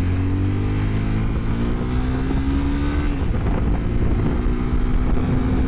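Honda CBR250R's single-cylinder engine pulling under throttle as the bike rides, its note rising steadily, breaking off for a moment about three seconds in, then rising again. Wind rumble on the microphone underneath.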